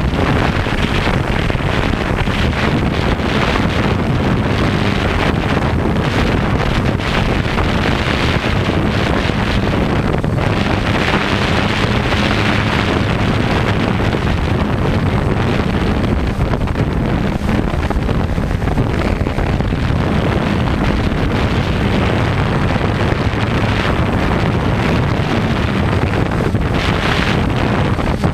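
Quadcopter motors and propellers humming steadily, with wind buffeting the microphone.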